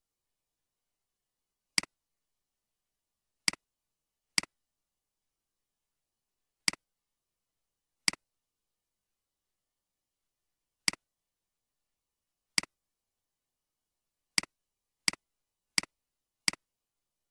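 Computer mouse button clicks, eleven single clicks spaced irregularly, bunching up near the end, each a quick press-and-release double tick with silence between.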